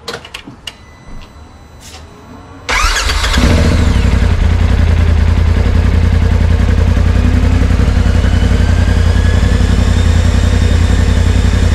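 Polaris RZR Pro XP's 925cc parallel-twin engine started just after an oil change: a few quiet clicks, then about three seconds in it cranks briefly and catches, settling into a steady idle.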